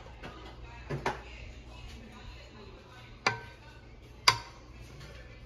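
A wooden spatula knocking against a nonstick frying pan while raw chicken pieces are stirred. There are a few sharp knocks, each with a short metallic ring from the pan: a double knock about a second in, then two single knocks near the end, the last one the loudest.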